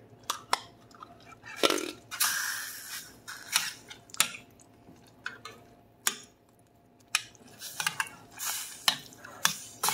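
Jellied cranberry sauce sliding out of its can and dropping into a saucepan of sauce about two seconds in, then a metal spoon clicking against the stainless saucepan as it breaks up and stirs the jelly.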